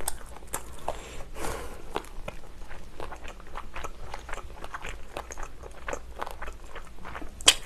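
Close-miked chewing of fried chicken: a steady string of short, wet mouth clicks and smacks, with a sharper click near the end.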